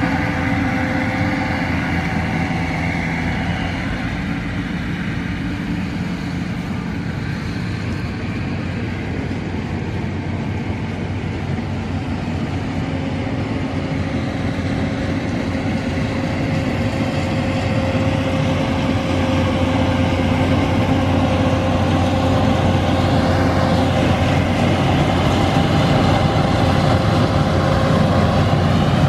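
Yanmar YH850 combine harvester running steadily under load while cutting rice: a continuous diesel engine drone with the whirr of the threshing machinery, growing gradually louder over the second half as the machine comes closer.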